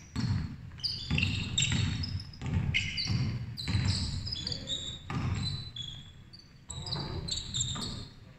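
A basketball thumping on a wooden sports-hall court during play, at an uneven pace, with sneakers squeaking in short, high chirps on the floor.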